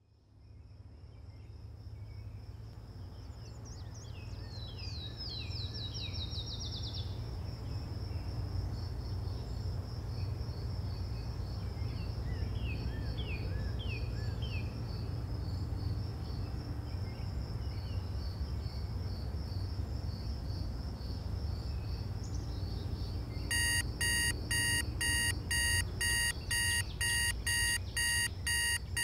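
Quiet morning ambience: a steady low rumble, a high steady tone and two spells of bird chirping. About 23 seconds in, a smartphone alarm starts beeping loudly, repeating quickly and steadily.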